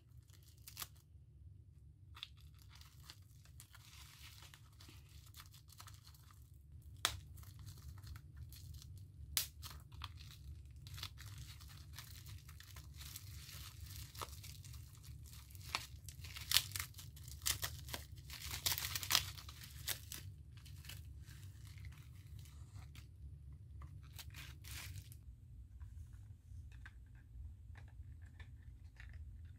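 Plastic bubble wrap crinkling and tearing as it is pulled off a small ink box by hand: scattered crackles, densest a little past the middle. A steady low hum runs underneath.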